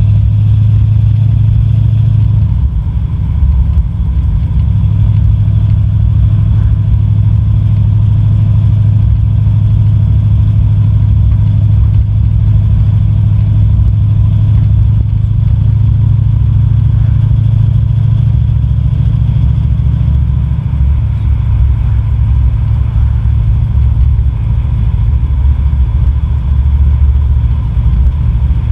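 Car driving at a steady speed: a loud, steady engine and road rumble with a deep low hum.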